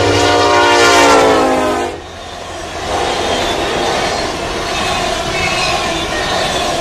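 A freight train's diesel locomotive horn sounds for about two seconds, its pitch sinking slightly, then stops. The freight cars then roll past with a steady rumble of wheels on rail and faint wheel squeal.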